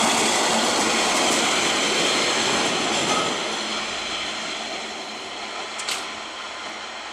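RFI D.145 diesel locomotive running through at speed as a light engine, its engine and wheel noise loud as it passes close and then fading from about three seconds in as it draws away. A single sharp click near the end.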